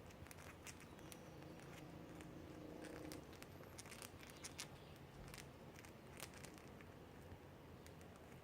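Faint beak grinding from several cockatiels, a soft scattered clicking and rasping, the sound of birds that are relaxed and content.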